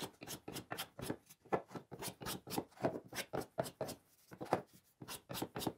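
Hand plane taking quick, short strokes along a walnut glue-up to flush the joints smooth: a rapid run of brief shaving swishes, about four a second, with a short pause about four seconds in.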